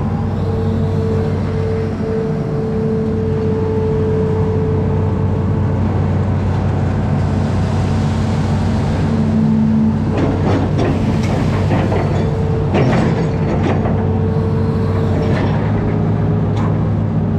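Amphibious excavator's diesel engine running steadily, with a string of sharp, irregular knocks from about ten seconds in.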